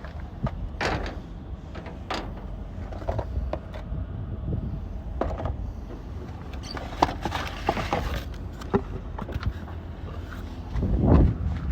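Scattered metal clinks and knocks from hand tools and parts during work on a Freightliner truck's engine fan and fan clutch, over a steady low hum. A louder low rumble swells up near the end.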